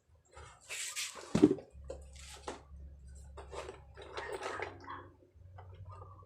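Irregular clinks, scrapes and knocks of hand work on an old bicycle, with one sharp knock about a second and a half in.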